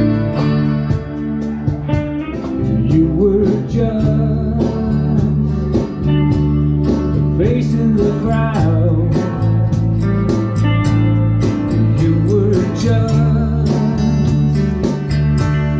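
Live country-style band music: an acoustic guitar strums steady chords while a melody of bending notes plays over them.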